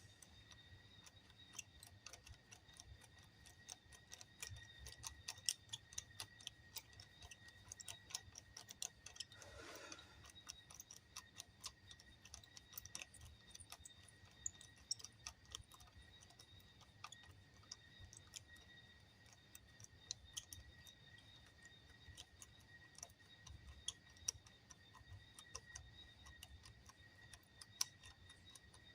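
Faint, irregular clicks and ticks of a bolt being slowly turned by hand into 3D-printed plastic leg parts, over a faint steady high-pitched whine.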